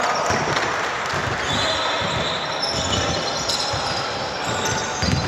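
Basketball game play: the ball bouncing on the court in repeated thuds, with sneakers squeaking on the floor, high and brief, about two to three seconds in.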